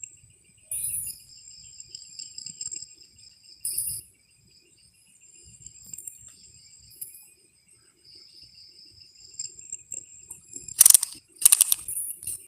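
Insects chirring steadily at several high pitches. A few loud, sharp knocks come in a quick cluster near the end.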